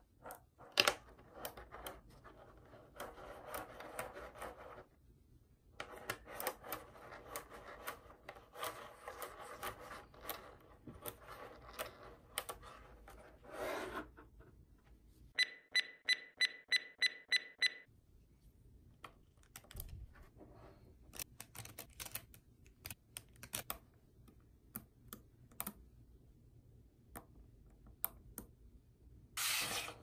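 Mini neodymium magnet balls clicking and rattling as hands snap them together into chains and panels. Midway, a run of about ten evenly spaced high beeps, about four a second.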